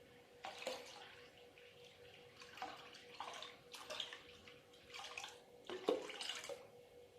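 Water splashing in several short bursts, as when vegetables are rinsed in a kitchen sink.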